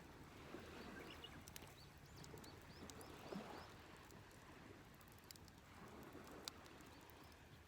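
Faint outdoor ambience: a soft, slowly swelling hiss with a few sharp small clicks, and a quick run of faint high chirps a little over a second in.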